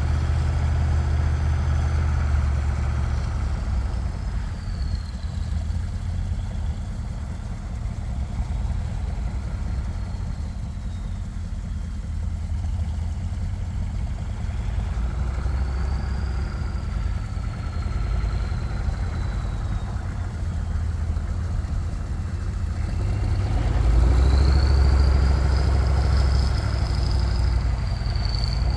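Truck engine running with its revs rising and falling, with a high whine that glides up and down along with it; the engine gets louder about 24 seconds in.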